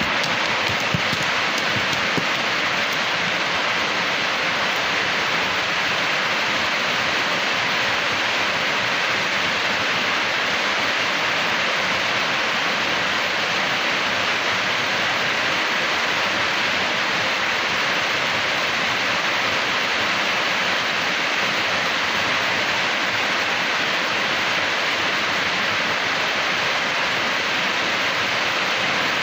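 Steady, even rush of water, as in a heavy downpour over flooded streets, with no change in level throughout.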